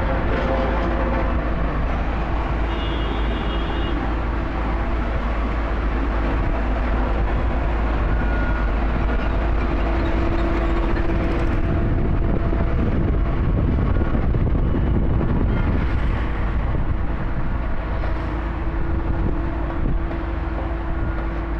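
Road roller engine running steadily, a constant low drone with a steady hum above it.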